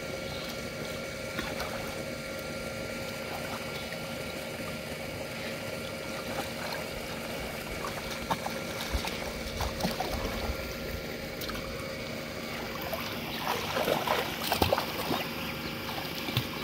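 Shallow muddy water splashing and sloshing as someone wades and gropes through it by hand for fish, with scattered small splashes. The splashing grows busier and loudest near the end.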